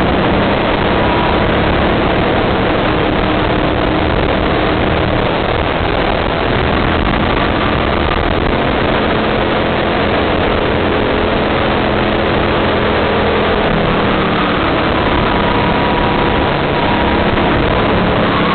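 Go-kart engine running at speed under the driver's throttle, heard from a camera mounted on the kart, mixed with heavy wind and track noise. Its note shifts a little through the corners.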